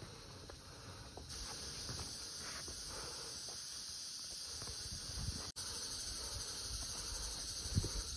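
Steady high-pitched hiss of a rainforest insect chorus, stepping up louder about a second in and cutting out for an instant about halfway through, with scattered soft thumps of footsteps on the dirt trail.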